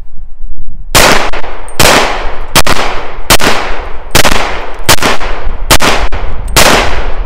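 Llama Max-1 .38 Super semi-automatic pistol firing Remington 130-grain full metal jacket rounds: eight shots at an even pace, a little under a second apart, starting about a second in. The string runs without a stoppage, the pistol cycling and feeding each round.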